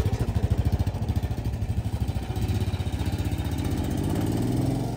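Motorcycle engine running with a rapid, even low pulse, picking up slightly in pitch and level near the end.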